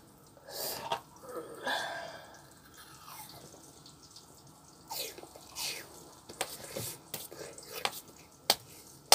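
Mouth sounds of someone eating instant noodles: soft chewing and slurping, then a run of short, sharp wet smacks and clicks in the second half.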